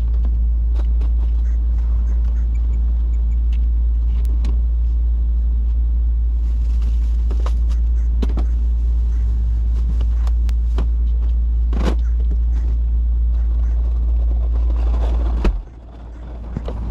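A steady low rumble that stops suddenly near the end, with scattered clicks and knocks over it.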